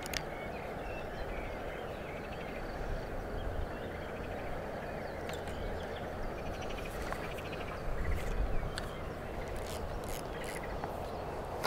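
Open-air ambience: small birds chirping and trilling over a low rumble of wind on the microphone, which swells briefly about eight seconds in, with a few faint clicks.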